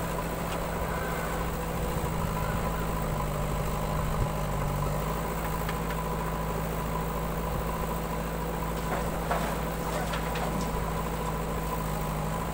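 Diesel engines idling steadily: a farm tractor close by and a JCB backhoe loader working behind it. A few faint clicks come about nine to ten seconds in.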